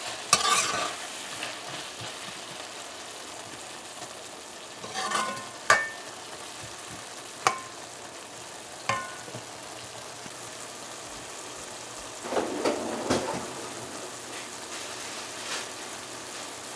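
Stewed cabbage sizzling in a metal pot while a metal spoon stirs and turns it, scraping the pot. Several sharp ringing clinks of the spoon against the pot come in the middle, and a run of scraping comes later.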